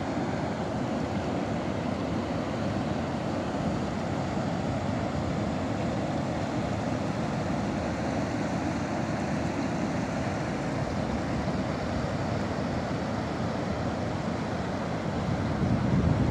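Muddy floodwater rushing down a desert wadi in flash flood, a steady wash of water noise, with wind buffeting the microphone that grows stronger near the end.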